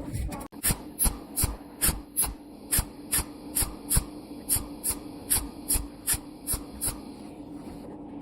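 A tool or machine working in short, even strokes, about two and a half a second, over a steady hum; the strokes stop about seven seconds in.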